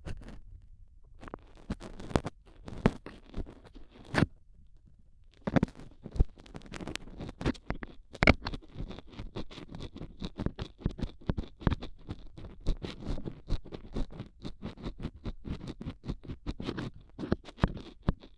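Stainless steel dental tool scratching and scraping inside an ear for ASMR ear cleaning. At first there are scattered clicks with short pauses, then from about five seconds in a dense run of quick scratches.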